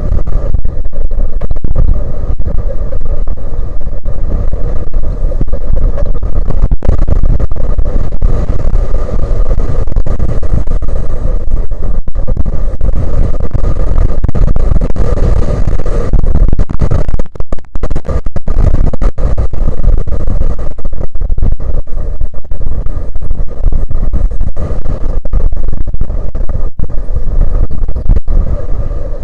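Strong wind buffeting the microphone: a loud, constant low rumble that overloads the recording, with a short dip about seventeen seconds in.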